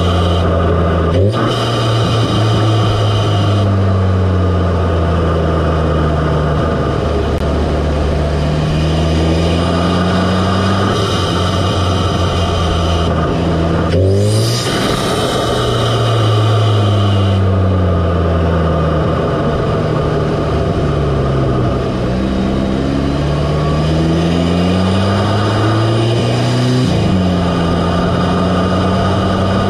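Audi S3's turbocharged 2.0-litre four-cylinder heard up close in the engine bay, drawing through an APR carbon-fibre open intake. The engine and intake sound slowly fall and rise in pitch over several seconds, with abrupt pitch changes about a second in, a quick upward sweep midway, and another change near the end.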